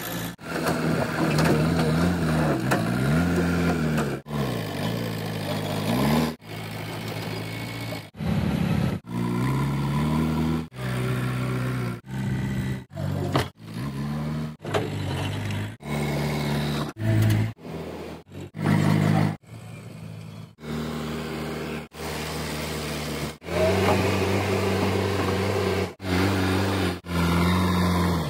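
JCB 3DX backhoe loaders' diesel engines running and revving up and down under work, heard as a string of short clips that cut off abruptly every second or two.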